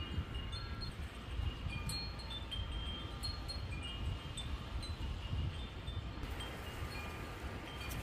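Wind chimes tinkling irregularly in the breeze, with short high ringing notes a few times a second and a low rumble of wind on the microphone.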